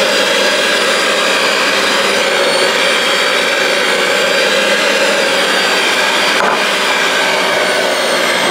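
Electric hand mixer running steadily on low speed, its beaters churning boiled potatoes into mash.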